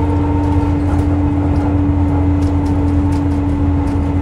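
Cummins ISL 8.9-litre turbocharged inline-six diesel of a 2005 New Flyer D40LF bus running steadily, a low rumble with a constant hum that holds the same pitch throughout.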